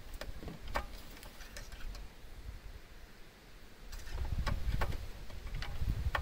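Scattered sharp clicks and knocks from a plastic fuel funnel and tank cap being handled at a push lawn mower with its engine off, with low dull rumbling from handling about four seconds in.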